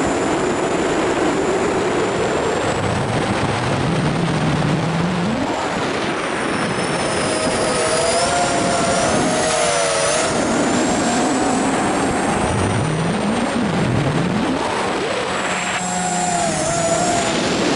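FPV quadcopter's electric motors and propellers heard through its onboard camera: a loud, steady rush of prop wash and air with whining motor tones that rise and fall as the throttle changes.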